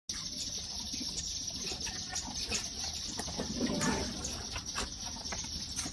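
Steady outdoor background noise with scattered light clicks and knocks, a little louder about four seconds in.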